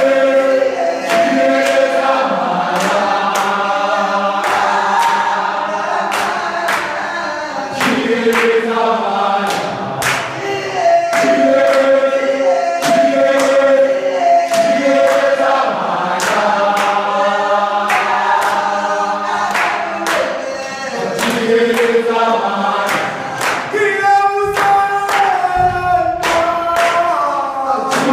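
A group of voices singing together in harmony, in long held chords that change every second or two, with sharp beats keeping time about one and a half times a second.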